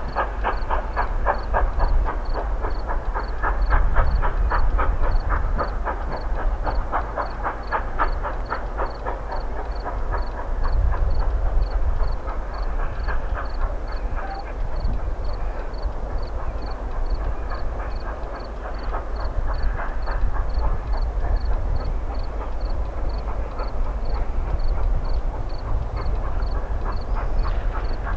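A train running, with a rhythmic beat about four times a second over a steady low rumble; the beat is strongest in the first ten seconds and then fades.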